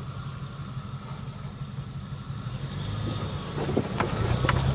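A fourth-generation Toyota 4Runner's V6 engine pulling under load as the truck crawls up a steep dirt hill. The low rumble grows louder as the truck comes closer, and a few sharp clicks come in the last second or so.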